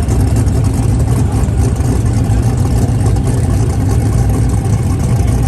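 Turbocharged 5.3-litre LS V8 drag car idling: a loud, steady low rumble.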